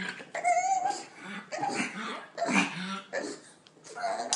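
Pug making excited vocal noises in four short bursts, each about a second apart, some breathy and some with a wavering whine.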